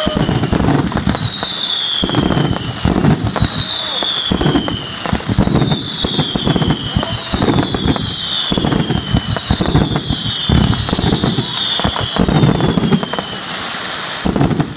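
Fireworks going off: a run of whistles, each falling in pitch over about a second and a half, repeating roughly every two seconds about seven times, over continuous crackling and bangs. The whistles stop shortly before the end.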